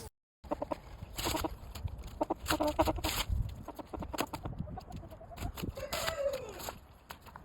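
Chickens clucking in short repeated calls, with one longer call that falls in pitch about six seconds in.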